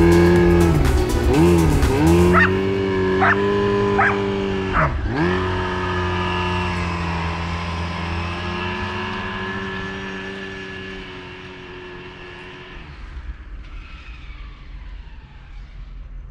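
Snowmobile engine revving as the sled pulls away, its pitch dipping and climbing twice with the throttle in the first few seconds, then holding steady and fading into the distance.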